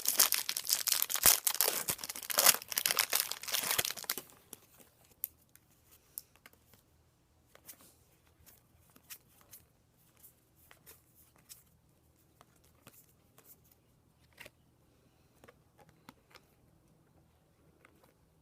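A Bowman Draft trading-card pack wrapper is torn open and crinkled, with dense crackling for about four seconds. After that come faint scattered clicks and rustles of the cards being handled.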